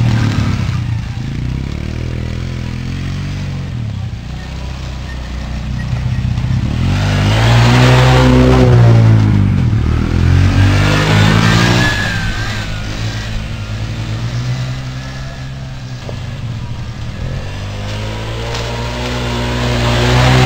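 Small ATV engine running on a trail ride, revving up and easing off in waves: it climbs to its loudest about seven to nine seconds in, drops back, rises briefly again, and climbs once more near the end.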